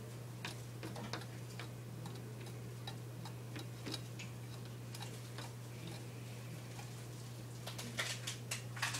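Northern cardinal pecking on a sliding glass door: scattered faint taps, then a quicker run of louder taps near the end.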